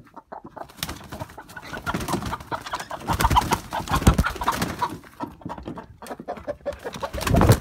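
Chickens clucking and calling while they are handled and lifted out of a car boot, with rustling and knocks throughout. The loudest stretches come about halfway through and again just before the end.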